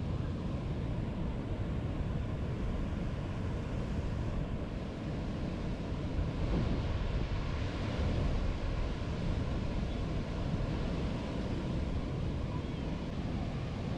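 Wind buffeting the microphone in a steady, uneven rumble, over the wash of choppy river water.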